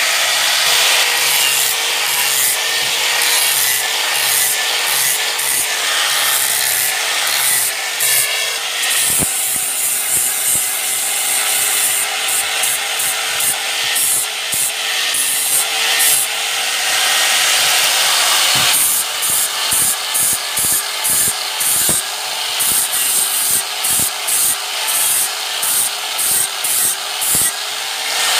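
Wood being scraped or sanded against a spinning wooden mortar blank, over the steady hum of the small motor that turns it. For the first two-thirds the scraping is continuous; then it comes in regular strokes, about two a second.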